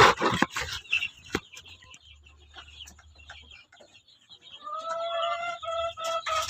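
A few scraping strokes at the start. Then, about four and a half seconds in, a chicken begins calling: a run of short calls on one repeated pitch.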